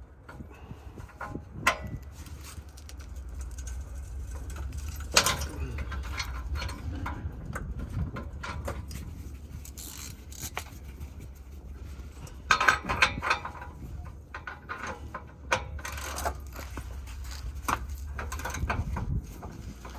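Metal hand tools clinking and knocking against metal in scattered strikes, with a short cluster of clinks a little past halfway, over a steady low hum.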